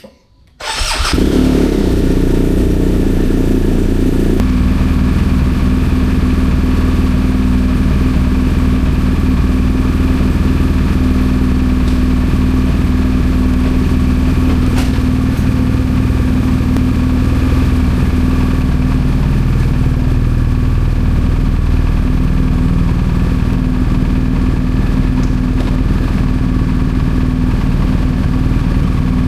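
BMW R1250GS Adventure's boxer twin, fitted with an Akrapovic slip-on exhaust, starts about a second in and settles into a steady idle.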